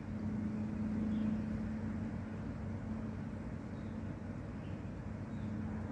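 Steady low engine or machine hum, a little louder in the first couple of seconds, over background noise.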